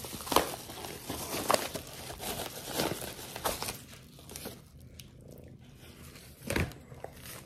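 Paper mailer envelope being handled and torn open by hand: crinkling and tearing crackles, busiest in the first half, with a single soft thump about six and a half seconds in.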